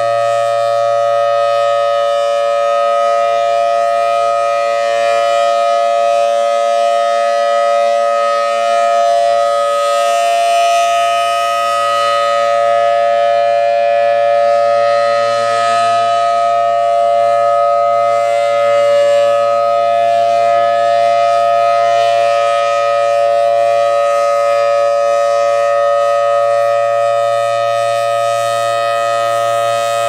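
Federal Signal Thunderbolt 1000AT outdoor warning siren sounding its steady Alert signal: two close pitches held together without rising or falling. The horn rotates, so the loud tone swells and eases gently.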